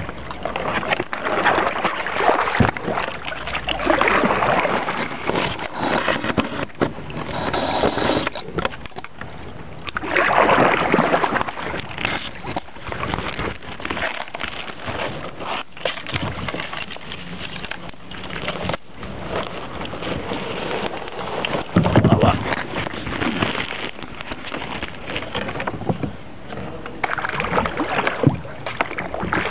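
Kayak paddle strokes splashing, with water sloshing and gurgling around the hull, in uneven swells every few seconds. Occasional sharp knocks are heard, as of the paddle striking the boat.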